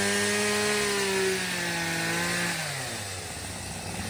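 A steady, buzzing, motor-like drone with a clear pitch that drops in pitch and fades about two and a half seconds in.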